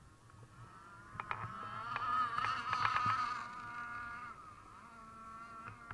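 Two gas-powered RC racing boats' small two-stroke engines buzzing at high revs across the water, a high steady whine that swells about two to three seconds in and then fades as the boats run past.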